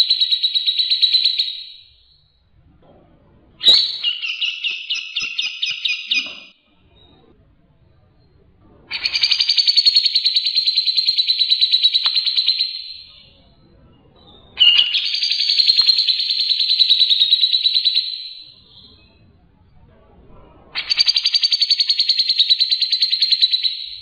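Grey-cheeked bulbul (cucak jenggot) singing long, rapid chattering phrases, each a few seconds long, with short pauses between them.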